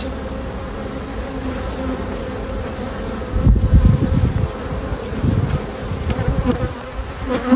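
Honeybees buzzing around an open hive, a steady hum from the mass of bees on the frames. A burst of low rumbling noise comes about three seconds in, with a smaller one a couple of seconds later.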